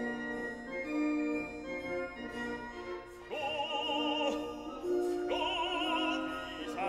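Background music: sustained instrumental chords, then a solo singing voice with a wide vibrato comes in about three seconds in and holds long notes.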